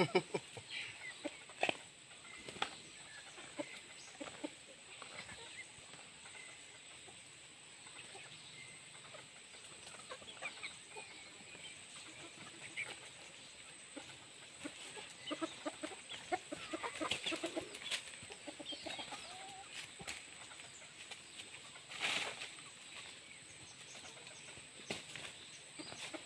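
Chickens clucking on and off, over a thin steady high whine.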